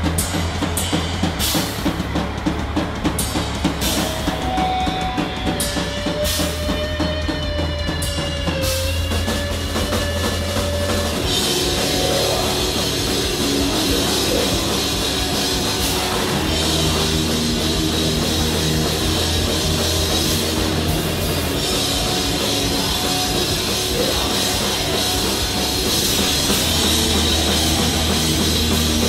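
Hardcore punk band playing live: drums and bass under a held, wavering guitar note, then about eleven seconds in the whole band comes in together as a dense, continuous wall of guitars, bass and drums.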